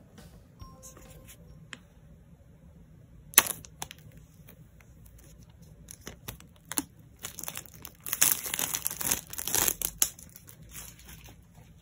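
Clear plastic shrink-wrap being torn and peeled off a boxed Apple Pencil, crinkling and crackling. A sharp crack comes about three seconds in, and the crinkling is densest and loudest near the end.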